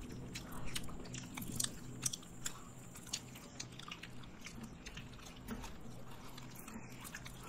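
Chewing and eating a soft chocolate mousse sweet: quiet chewing with scattered small mouth clicks at irregular intervals.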